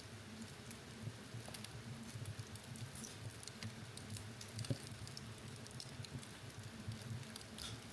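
Fire in a fireplace crackling: a steady scatter of small sharp pops, with one louder pop just past the middle, over a low steady hum.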